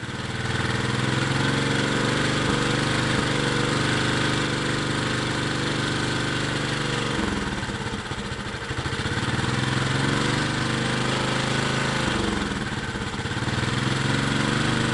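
Small gasoline engine running through a Pantone-style GEET fuel processor, holding a steady speed that sags briefly about halfway through and again near the end.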